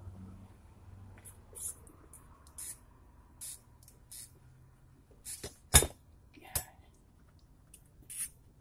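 Handling noise at a bullet-casting bench: short rustles and scrapes of heavy work gloves, with a sharp knock about six seconds in and a lighter one just after.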